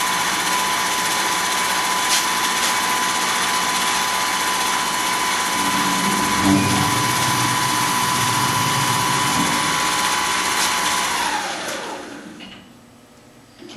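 Tormach PCNC 1100's spindle running in Duality lathe mode while facing a brass spacer: a steady high whine over hiss. A lower hum joins about six seconds in for a few seconds. Near the end the whine falls in pitch and fades as the spindle spins down.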